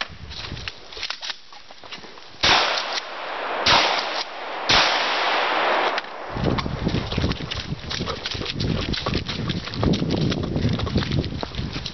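AR-15 rifle shots during a timed run-and-gun stage: a few sharp reports about a second apart, among clattering and rumbling noise.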